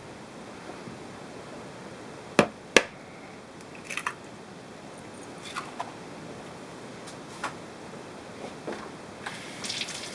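A raw egg cracked into ground meat in a plastic mixing bowl: two sharp knocks of the shell a few seconds in, then lighter clicks and a wet squish near the end as the egg is opened and drops into the meat.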